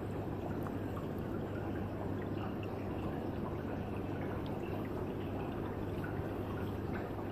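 Aquarium water circulating steadily: a constant trickling, bubbling wash with scattered faint ticks and a low steady hum underneath.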